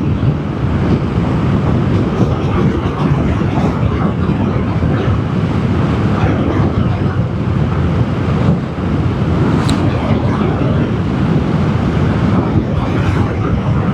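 Steady wind rush and road noise over the drone of a Vespa GTS 300 scooter's single-cylinder engine, riding along at an even cruising speed.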